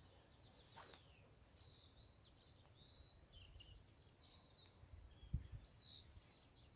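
Faint woodland dawn chorus: several songbirds singing at once, many short high chirps and twittering phrases overlapping. A brief low thump about five seconds in.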